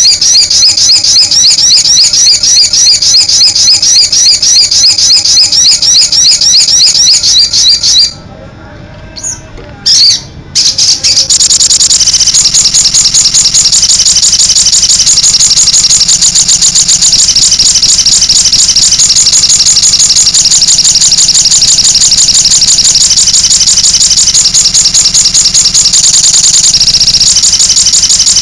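Crimson sunbird (sogon) singing loudly in an energetic rapid-fire run of high chirps, breaking off for a few seconds about eight seconds in, then resuming as a dense, continuous fast trill.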